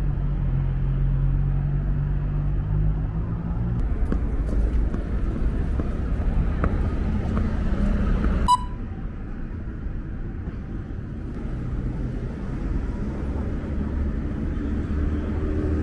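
Busy city street traffic noise, with a vehicle engine droning for the first four seconds or so. About halfway through a sharp click with a short ringing tone, after which the street noise is quieter.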